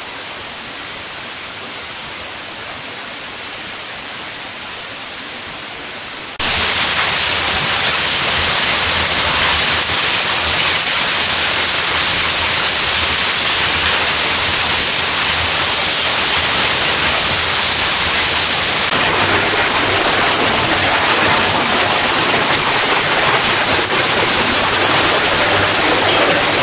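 Steady rushing of water in a cave passage, an even hiss with no rhythm. It steps up suddenly and becomes much louder about six seconds in, then holds steady.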